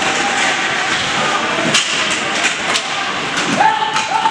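Ice hockey play on a rink: sharp clacks of sticks and puck on the ice and boards, skates scraping, and spectators' voices. A long held shout comes in near the end.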